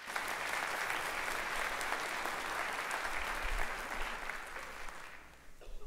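A congregation applauding: dense clapping that holds steady for several seconds and dies away near the end.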